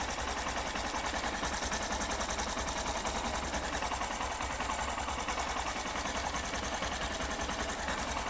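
Honda SP 125 BS6 single-cylinder fuel-injected engine idling steadily, heard close up, with an even rapid pulse. There is no tappet tick: the valve clearance has just been set with a feeler gauge, and the tick-tick noise is 100% gone.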